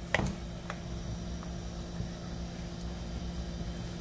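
A steady low hum, with a few light clicks in the first second and a half.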